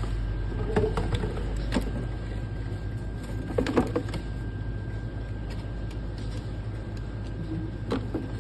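Shoes and packaging being handled during an unboxing: scattered light taps and rustles over a steady low background hum.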